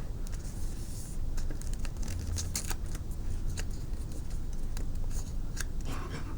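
Origami paper being folded and creased by hand: scattered short crinkles and rustles of the sheet.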